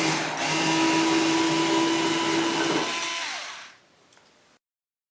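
Power drill-driver spinning steadily as it backs out the screw of the dryer's cord clamp, then winding down a little past three seconds in.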